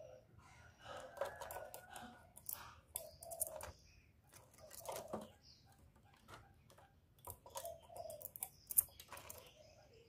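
Faint, scattered clicks and rustles from a caged spotted dove moving about in its wire cage.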